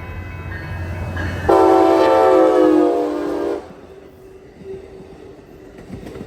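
A passenger train rolling past with a low rumble; about a second and a half in, a train horn sounds one held chord for about two seconds, then the sound drops to a quieter steady rolling.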